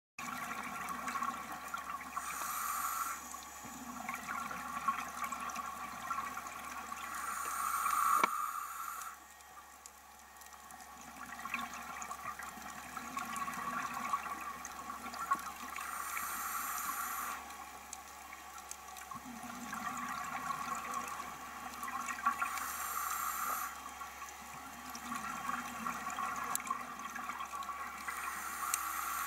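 A scuba diver breathing through a regulator underwater: a steady bubbling and hiss that swells five times in a slow, even cycle as exhaled air bubbles out.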